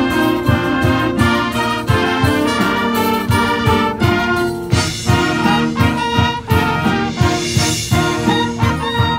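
High school marching band playing with brass and woodwinds over a steady drum beat.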